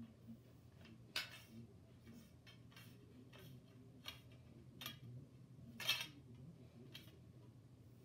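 Short, sharp clicks and knocks, about seven of them at uneven gaps and the loudest about six seconds in, as a thin rod is twirled and handled.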